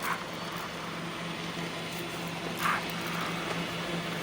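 Several robot vacuums running together: a steady motor hum and whir, with two brief scratchy noises, one at the start and one near the three-second mark.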